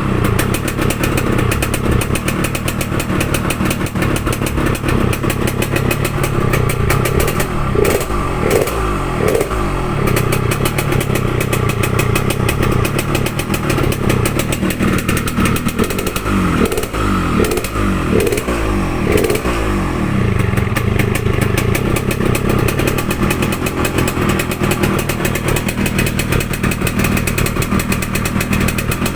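Yamaha RX-King two-stroke single-cylinder motorcycle engine running, tuned for a crisp, growling exhaust note. It mostly idles, with the throttle blipped a few times about a quarter of the way in and again just past the middle.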